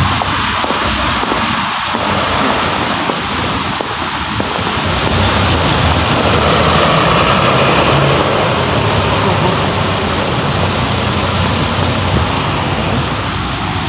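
Road traffic on a snow-covered street: a bus passing, its engine and tyre noise swelling to loudest around six to eight seconds in, then easing off.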